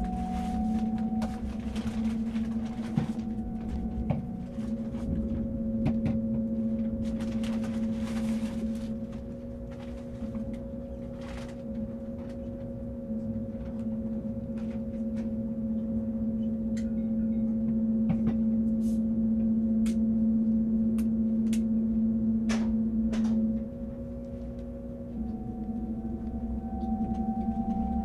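Interior of an ICE high-speed train moving slowly: a steady electric hum of a few held tones over a low rumble, with scattered light clicks and knocks from the carriage. One higher tone rises slightly near the start and again near the end, and the hum dips in level briefly twice.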